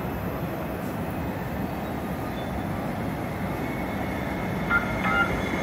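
Steady rumble of an approaching Link light rail train, growing a little louder toward the end, with a couple of short high squeaks near the end.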